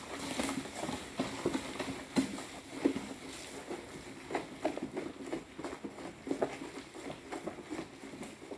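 A stirring stick knocking and scraping against the side of a bowl as a thick liquid-soap mixture is stirred, with irregular knocks about one or two a second.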